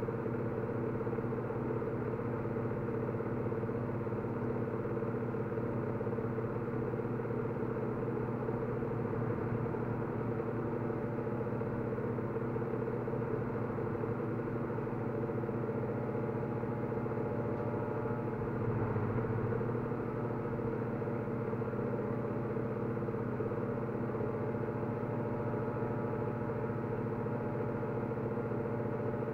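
A steady low mechanical hum of several held tones, swelling slightly about nineteen seconds in.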